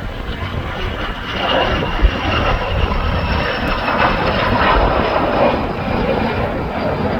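Jet aircraft engine noise: a rushing sound with a high whine that slowly falls in pitch, growing louder about a second in. Wind buffets the microphone underneath.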